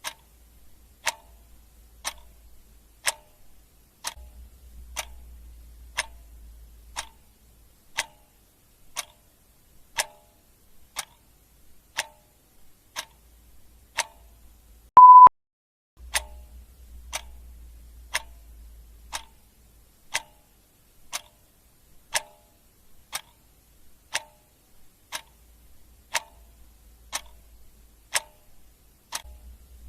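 Clock ticking steadily, one tick a second. About halfway through, a single short high beep sounds, louder than the ticks.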